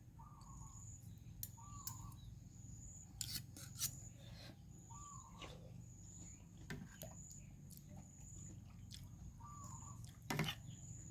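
Quiet background with a bird repeating a short hooked call and a high, pulsing insect trill. A few brief sharp clicks break in, two about three and a half seconds in and the loudest near the end.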